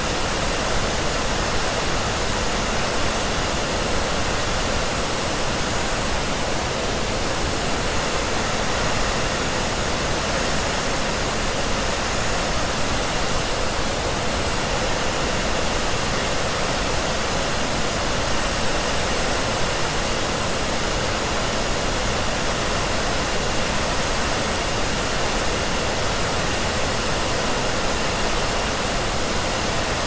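Hair dryer running continuously, mixed with pink noise: a steady, even rushing hiss with a faint high whine and no change in level.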